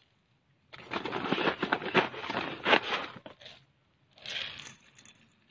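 Granules of NPK fertilizer rattling and crunching in a stainless steel bowl on a scale as they are poured and shifted: a long crackly rattle of about three seconds, then a shorter one about a second later.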